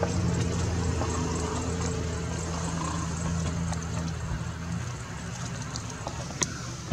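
Steady low mechanical hum with a few faint clicks, growing fainter about two-thirds of the way through.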